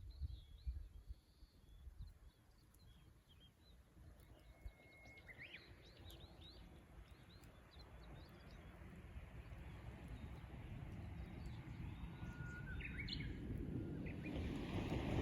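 Japanese bush warbler singing twice, each song a long held whistle followed by a quick rising flourish, with other small birds chirping. A low rumbling noise grows steadily louder through the second half.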